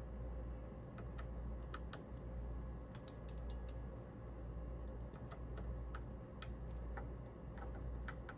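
Scattered, irregular small clicks and ticks of a Torx screwdriver working the tiny screws of a RAM cooling block, over a steady low hum.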